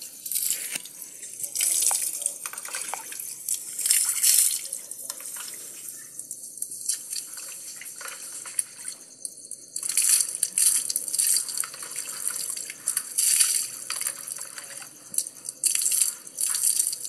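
Water splashing and pouring in uneven bursts as a small dog is bathed, with two short lulls part-way through.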